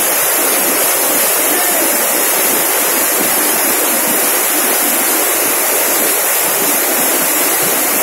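Dhuandhar Falls on the Narmada River: a loud, steady rush of water pouring over a rock ledge and churning into the gorge below.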